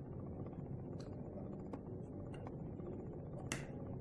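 Faint clicks and light knocks of plastic parts being handled while an old drill's switch contact assembly is worked loose from the handle, the sharpest click about three and a half seconds in, over a low steady hum.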